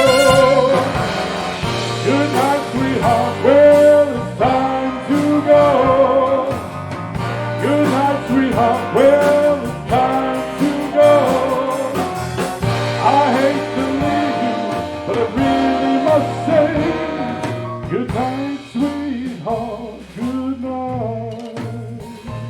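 Live big band orchestra playing an instrumental passage: repeated wavering horn phrases over a steady bass line.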